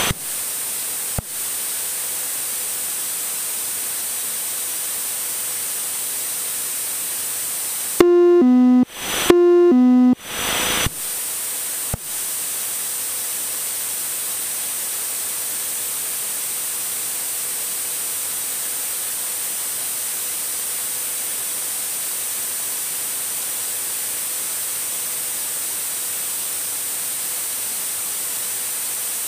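A steady hiss runs throughout. About eight seconds in, a loud two-tone alert falls from a higher to a lower note, twice in a row: the Garmin GFC700 autopilot-disconnect tone, sounding as the autopilot is switched off for a hand-flown landing.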